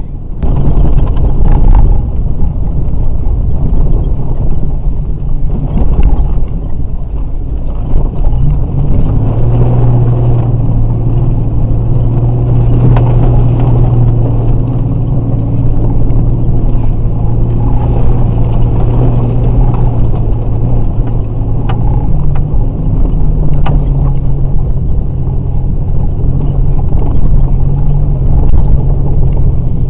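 Vehicle engine and tyre rumble heard from inside the cab while driving on a rough dirt road, a steady low drone whose engine note holds from about a third of the way in and rises slightly past the two-thirds point, with occasional knocks and rattles from bumps.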